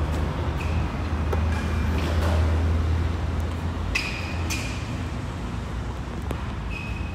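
Steady low background rumble, with two short metallic clinks about four seconds in as the loaded barbell is gripped.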